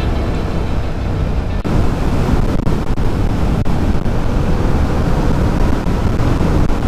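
Yamaha MT-07 motorcycle on the move: its parallel-twin engine running steadily under wind rush on the microphone, getting louder about a second and a half in.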